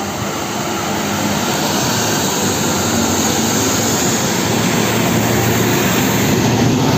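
Heavy fuel tanker trucks driving past on a wet road: a steady diesel engine drone under the hiss of tyres on wet tarmac, growing slightly louder.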